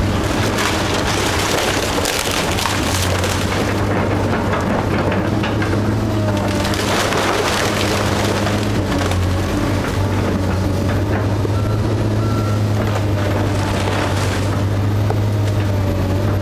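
Komatsu PC270LC hydraulic excavator running steadily while its grapple crushes and tears through a house's wood framing and siding. Spells of crunching and splintering wood come several times, in the first few seconds, about seven seconds in, and again near the end.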